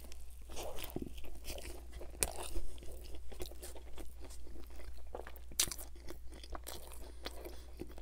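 Close-miked biting and chewing of a pizza sandwich filled with chicken and Caesar salad. A bite at the start is followed by irregular crisp crunches and wet chewing.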